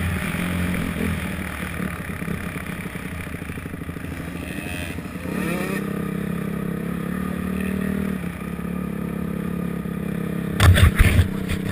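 250-class motocross bike engine heard from the rider's helmet camera, revs rising and falling at first, then running steadily at low revs. Several loud thumps near the end.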